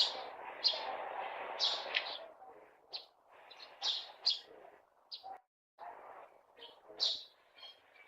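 Eurasian tree sparrows chirping: short, high chirps, one or two a second, over a low background murmur.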